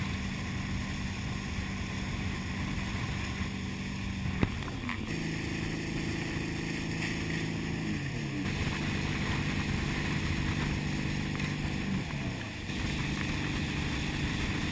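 A Malibu Echelon ski boat's engine runs at towing speed over the rush of its wake and spray, with wind on the microphone. The engine note slides down a few times, and there is a sharp click about four seconds in.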